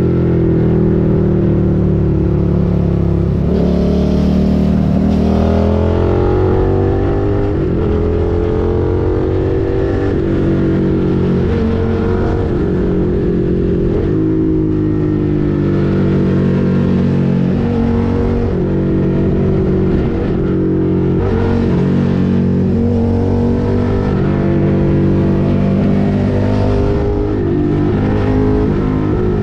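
Suzuki SV650's 645 cc 90-degree V-twin engine, heard from the rider's seat while riding, its revs rising under throttle and dropping back again and again as the rider accelerates, shifts and eases off.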